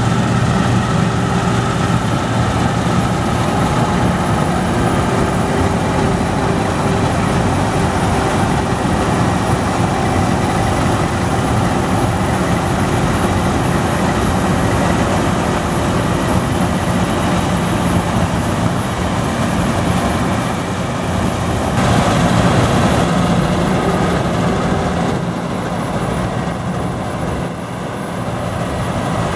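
Claas Lexion 770 combine harvester running under load while cutting and threshing a grain crop: a steady mechanical drone with a thin high whine on top. It grows fainter near the end as the machine moves away.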